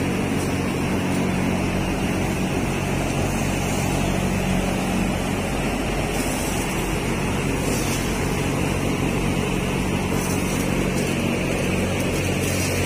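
Steady mechanical drone of a broiler house's ventilation fans, with short hisses of feed pellets pouring into plastic pan feeders a few times around the middle.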